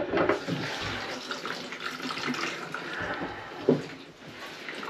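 Water running and splashing in a stainless steel kitchen sink, with a single knock late on.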